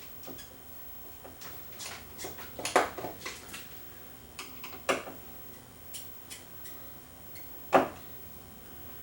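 Irregular clicks and knocks of a replacement computer fan being handled and fitted back onto a plasma TV's chassis, with two sharper knocks, one about a third of the way in and one near the end.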